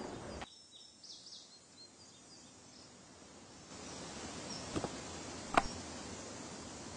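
A few faint, short bird chirps about a second in over quiet background ambience, followed by a steady faint hiss with two light clicks a little under a second apart.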